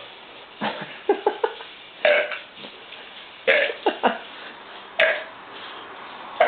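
A man burping again and again, a string of loud belches about a second apart, brought on by gulping down a liter of carbonated soda.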